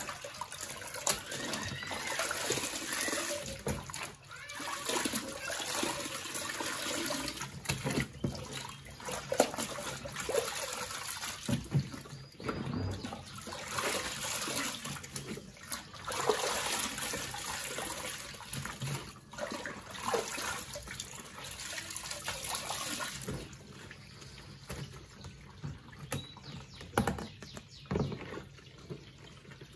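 Water sloshing and splashing as hands work and lift wet laundry in the soapy wash tub of a twin-tub washing machine, with dripping as clothes come out of the water; quieter over the last few seconds.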